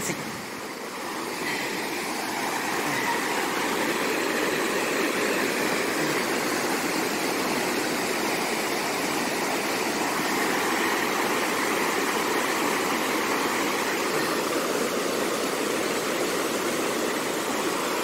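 Creek water rushing over rocks in small rapids, a steady, even rush of whitewater.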